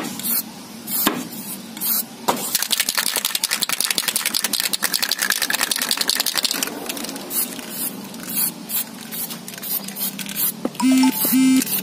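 Aerosol spray-paint can spraying black paint onto a shoe: short hissing bursts, then one long spray of about four seconds, then short bursts again. Two short pitched toots near the end.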